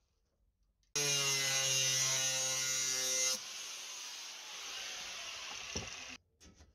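Electric angle grinder cutting sheet steel: a steady whine with a bright hiss starts suddenly about a second in. After about two and a half seconds it changes abruptly to a quieter hiss, which stops suddenly about six seconds in.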